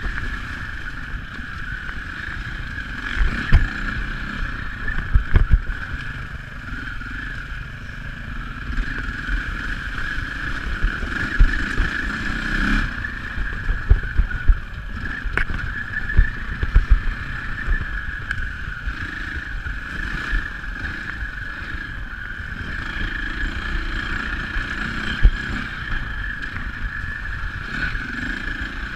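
KTM dirt bike engine running steadily under way, with irregular thumps from the bike jolting over the rough dirt trail.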